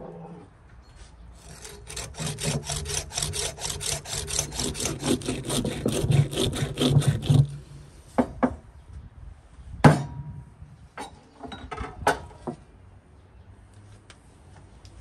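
A blade worked quickly back and forth against the bone of a raw beef leg, about five strokes a second for some six seconds, then stopping. A few sharp knocks follow, the loudest about ten seconds in.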